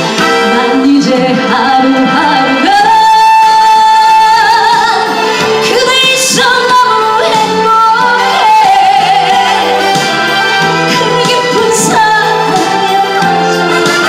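A woman sings a trot song live into a handheld microphone over an amplified backing track. She holds one long note with vibrato early on, then the melody moves on in shorter phrases.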